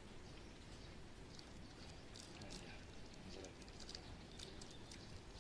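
Faint crinkling and scattered light ticks of a small candy wrapper as a monkey peels it open and eats the sweet, over a quiet outdoor background.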